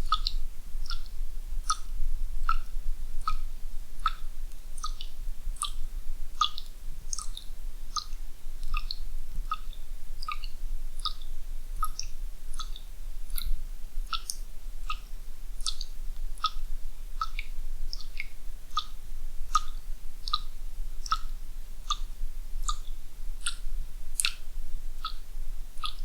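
Water dripping from a faucet, a steady run of single drops about twice a second, each a short pitched plink with a higher ping.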